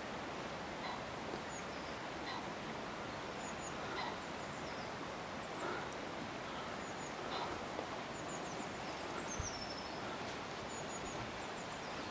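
Steady rush of river water flowing past broken ice floes, with faint high bird chirps and a few short sharper sounds every second or two. A brief low thump comes about nine and a half seconds in.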